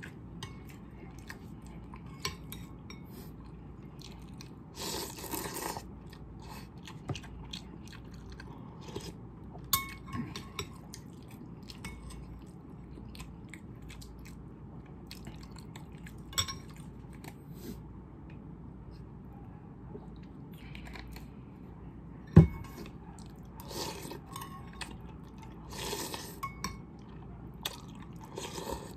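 Close-up eating sounds: chewing of instant noodles and boiled egg, with a few short slurps from the spoon. A metal spoon clinks against the ceramic bowl now and then, with one loud knock about three-quarters of the way through.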